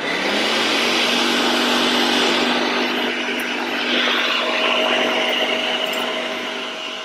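High-speed countertop blender motor spinning up and running steadily at full speed, blending a soaked-nut soup base that is still too grainy and needs a longer blend.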